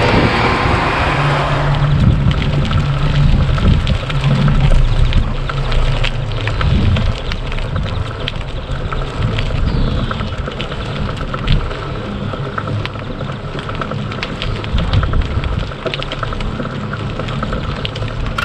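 Bicycle riding noise: a steady rumble from the rolling tyres with many small rattles and clicks, a little louder during the first seven seconds.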